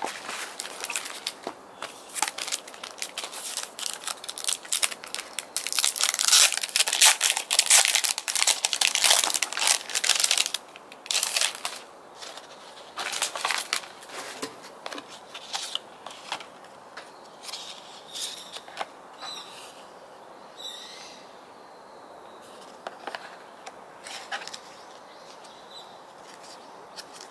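Hands unpacking an album set: crinkling and rustling of plastic and paper packaging, with many quick handling noises. It is busiest and loudest in the first ten seconds or so, then thins out to occasional rustles.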